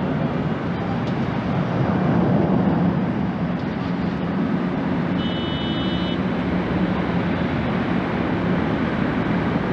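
The engines of a China Eastern Airbus A321 climbing out after takeoff, a steady low jet roar. About halfway through, a brief high-pitched tone sounds for about a second.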